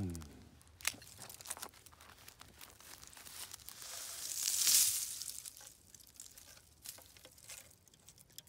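Footsteps crunching and rustling through dry scrub and brittle undergrowth, with scattered sharp clicks and a louder brushing hiss that swells and fades around the middle. A brief low voice-like sound falls in pitch at the very start.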